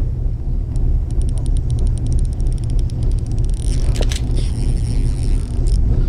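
Fishing reel ticking in a quick run of fine clicks that speed up over about two seconds, followed by a sharp click about four seconds in, over a steady low rumble.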